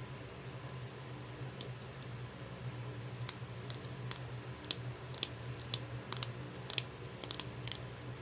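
Small hard plastic clicks and taps from a toy plastic hand mirror with a folding handle being handled, about fifteen at irregular spacing, starting about a second and a half in. A steady low hum sits underneath.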